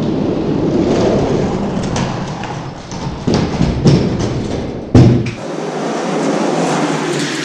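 Die-cast Hot Wheels monster trucks rolling and rattling down plastic track, a steady rumble broken by several sharp knocks, the loudest about five seconds in.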